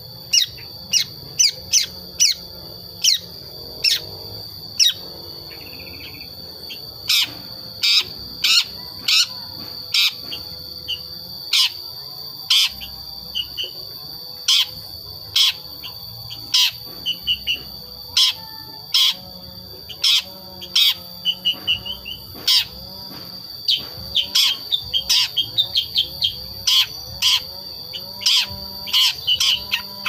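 A five-month-old long-tailed shrike giving short, sharp call notes at irregular intervals, now and then in quick runs of several. It is a young bird still learning its song, its calls not yet mixed with imitations of other birds. A steady high-pitched drone sounds behind the calls throughout.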